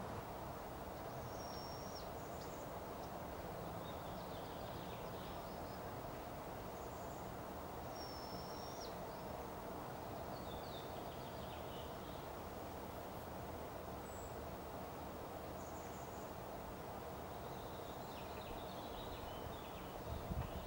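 Barred owl owlet giving a high, thin whistling call twice, about six seconds apart, over steady background noise: the fledgling calling for its mother.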